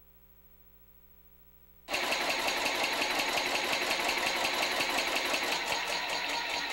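Inertial propulsion engine, a modified Dean drive, running in neutral with its shifters off: a rapid, even mechanical clatter that cuts in abruptly about two seconds in after near silence.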